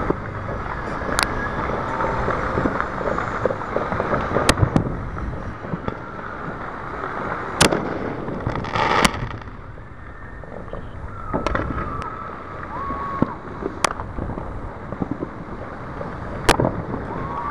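Aerial fireworks bursting in the distance: sharp single bangs every two to three seconds, about seven in all, with a longer crackling burst about nine seconds in, over a steady background rumble.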